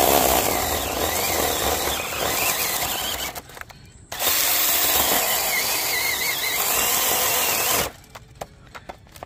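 Cordless 21 V mini chainsaw running and cutting into a small tree trunk: a run of about three seconds, a short pause, then another cut of about four seconds before the motor stops.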